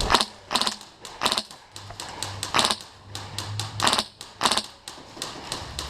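Airsoft guns firing single shots in an irregular exchange: about six sharp cracks with fainter ones between.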